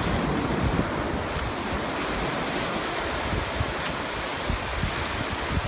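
Ocean surf breaking and washing up the shallows in a steady rush, with wind gusting on the microphone.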